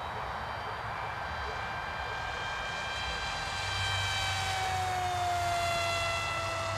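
Electric pusher motor and propeller of a Blade Manta RC delta wing whining in flight. The whine grows louder about halfway through as its pitch slowly falls.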